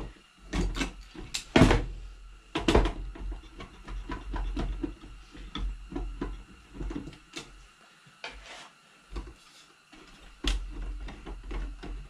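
Irregular metallic clicks and knocks of a small hand tool working screws out of a kerosene heater's sheet-metal burner housing, the loudest knocks about one and a half and nearly three seconds in.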